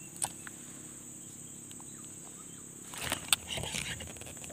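Quiet outdoor background with a steady thin high whine, a single click just after the start, then handling noise from about three seconds in: rustling and clattering with one sharp knock.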